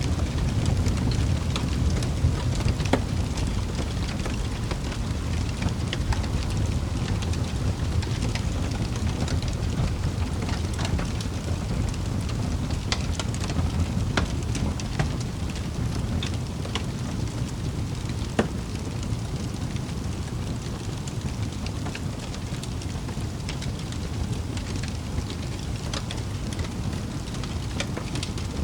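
Wood fire crackling in a fireplace: many scattered sharp pops and snaps over a steady low rumble of the flames.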